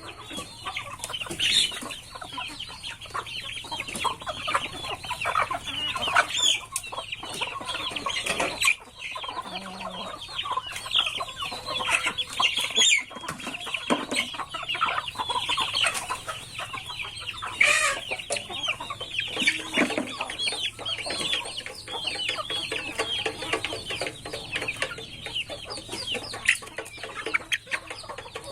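A flock of chickens clucking and calling continuously, many short overlapping calls at once.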